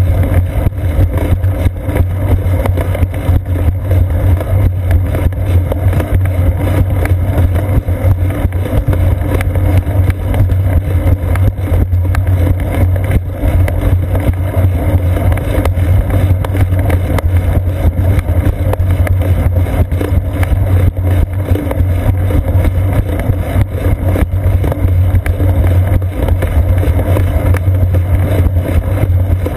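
Steady, loud low rumble of wind buffeting and ride vibration picked up by a seat-post-mounted GoPro Hero 2 on a moving bicycle.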